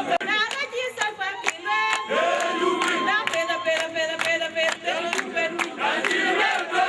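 A large crowd singing a chant together, many voices on sustained shifting notes, with sharp beats about four times a second.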